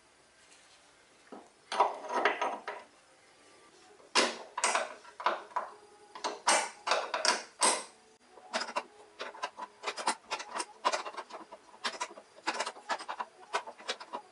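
Steel spanners clinking and scraping on a brake line fitting as the connector is loosened, one spanner holding the line while the other turns the nut. A short cluster of clicks about two seconds in, then a long run of sharp metal clicks from about four seconds on.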